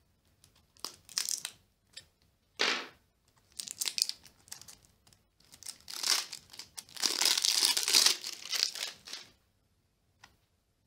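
Clear plastic shrink wrap on a card deck box crinkling as it is slit with a small blade and torn off. It comes in several short bouts, with the longest and loudest stretch from about six to nine seconds in.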